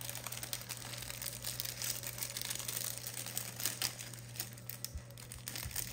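Small clear plastic bag crinkling as fingers open and handle it: a dense, irregular run of sharp crackles.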